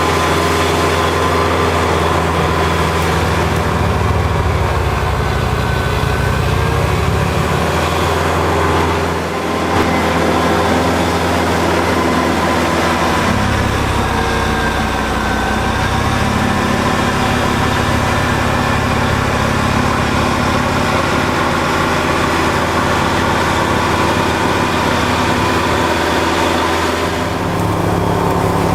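Kubota L5740 tractor's diesel engine running steadily. Its sound dips briefly about a third of the way in, and its note shifts a couple of times after that.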